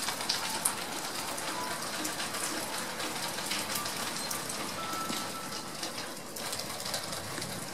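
Steady rain falling on the porch and yard, an even hiss with many small drop ticks.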